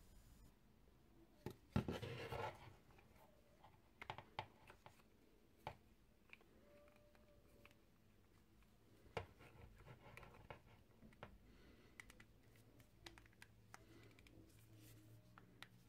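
Hands working the plastic head of a Banpresto Vibration Stars figure onto its body: faint, scattered clicks, taps and scrapes of plastic on plastic.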